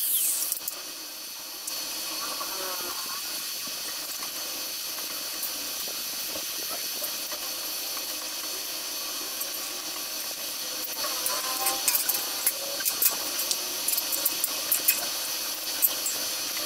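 An angle grinder stops in the first moment, then an electric stick welder's arc hisses steadily as joints of a square-tube grill frame are welded, with sharper crackling in the last few seconds.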